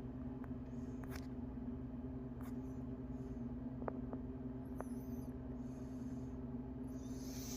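A steady low hum with a few faint, sharp clicks and knocks of things being handled, and a short hiss near the end.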